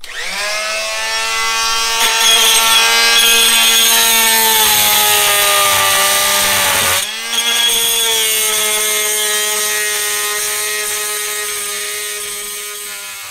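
Corded oscillating multi-tool cutting through an OSB subfloor: a steady buzzing whine that starts at once, drops out briefly about seven seconds in, then carries on.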